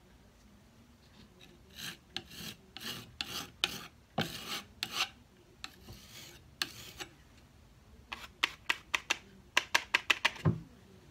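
Metal putty knife scraping across a painted drawer front, smearing on paint in a series of separate strokes that quicken into a fast run of short, sharp strokes near the end. A low thump comes just before the end.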